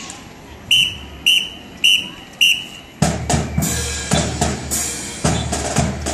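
A drum major's whistle gives four short, evenly spaced blasts as a count-off, then about three seconds in the marching band strikes up, with bass and snare drums hitting a steady beat.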